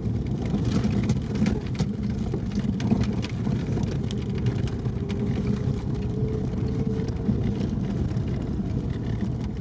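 Off-road vehicle driving slowly over a rough snowy forest track, heard from inside the cab: a steady low engine and drivetrain rumble with scattered small knocks and rattles from the cab and body over the bumps.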